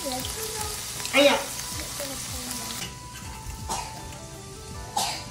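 Cheese wontons deep-frying in hot oil, a steady sizzle, with background music over it. There is one short louder burst about a second in, and the sizzle thins out about three seconds in.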